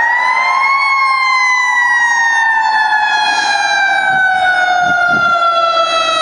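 Fire truck siren sounding a long wail: its pitch rises for about a second, then falls slowly over several seconds.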